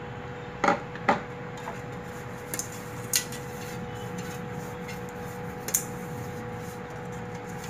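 Fingers rubbing cooking oil around the inside of an aluminium cake tin, with several sharp clicks and knocks of the metal tin. A steady hum runs underneath.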